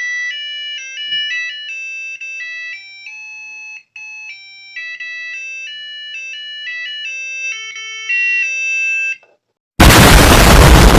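Digital alarm clock playing a ringtone-style melody of buzzy electronic beeping notes on its own as it powers up with fresh batteries. The tune stops about nine seconds in. Near the end comes a much louder harsh burst of noise lasting about a second and a half.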